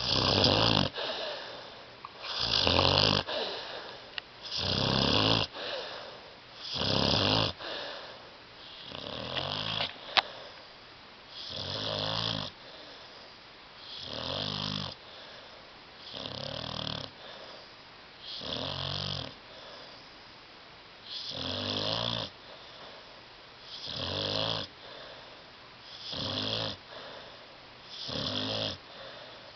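A sleeping dog snoring loudly and rhythmically, about one rattling snore every two seconds, the first few the loudest. A brief sharp click sounds about ten seconds in.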